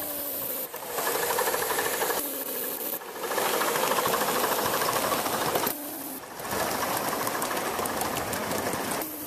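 Gauge 1 live-steam model locomotive running, a rapid steady hiss and chatter of steam exhaust that drops out briefly three times.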